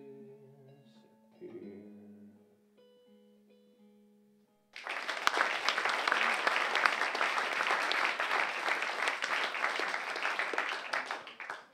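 Last plucked guitar notes of a song ring out and die away. Almost five seconds in, an audience bursts into applause, which carries on until it is cut off at the very end.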